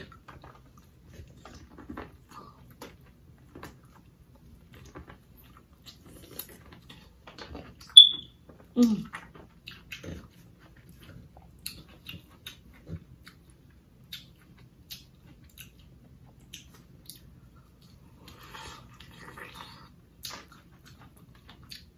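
Quiet close-up chewing and lip smacking of soft, sauce-coated boiled seafood-boil potato, with small scattered mouth clicks. A sharper click about eight seconds in is the loudest moment, followed by a short hummed sound.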